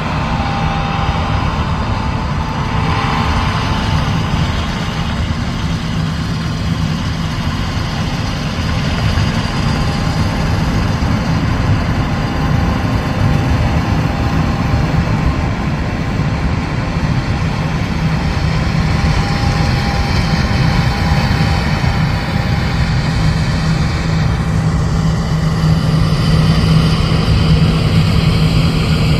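Heavy diesel harvest machinery running steadily with a deep engine rumble and hum, growing a little louder in the second half.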